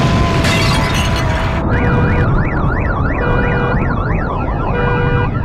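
A loud, dense rumbling blast cuts off about one and a half seconds in. Emergency-vehicle sirens then take over, wailing rapidly up and down about three times a second, with a steady siren tone switching on and off every second or so.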